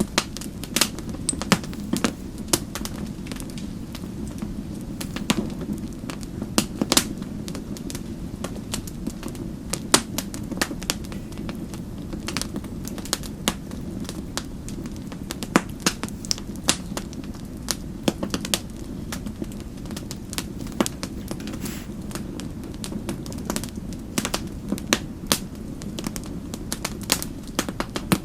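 Wood fire crackling in a fireplace: a steady low rumble with frequent sharp, irregular pops and snaps.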